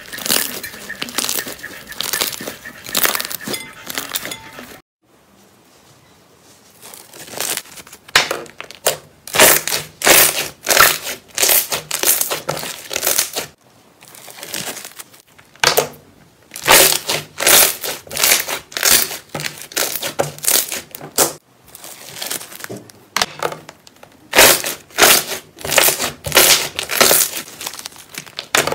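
Thick green slime being squeezed, kneaded and pressed through a wire grid by hand, giving runs of wet crackling and popping, broken by short pauses.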